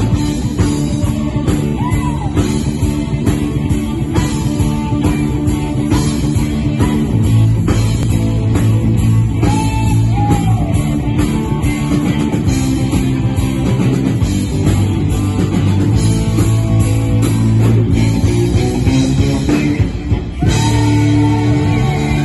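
Live rock band playing loud: electric guitars, bass guitar and drum kit, with a guitar bending notes a couple of times.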